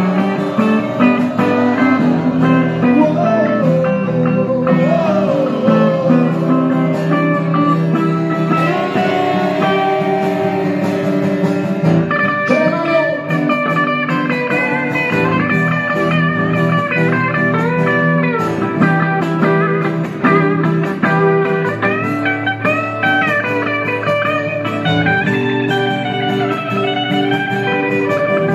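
Live rock band playing an instrumental passage, a guitar carrying the melody with bending notes over steady chords and bass.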